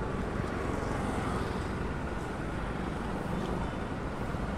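Steady outdoor background noise: a low rumble with hiss and no distinct events.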